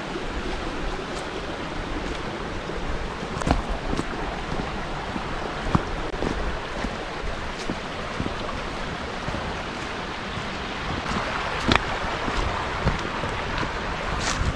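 Wind buffeting the microphone: a steady rushing noise with a low rumble, broken by a few sharp clicks.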